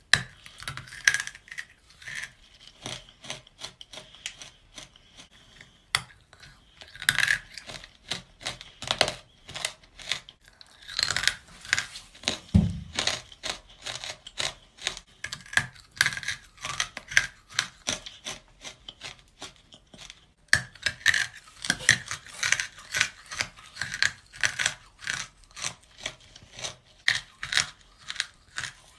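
Close-up crunching of a dry lump of edible earth (chalk and clay) being bitten and chewed: runs of sharp, crisp crunches and crackles, a few bites at a time with short pauses between.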